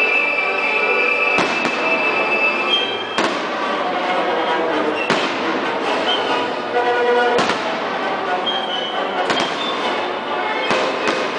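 Aerial fireworks shells bursting, about six sharp booms one to two seconds apart, over music with held, string-like tones.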